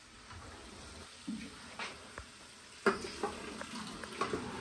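A few scattered clicks and knocks of kitchen utensils against cookware, the loudest a sharp knock about three seconds in.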